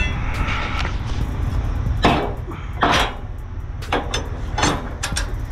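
Several sharp metal clanks and knocks, about six, from a steel bar being handled against a car hauler trailer's steel ramp mechanism, over a steady low rumble.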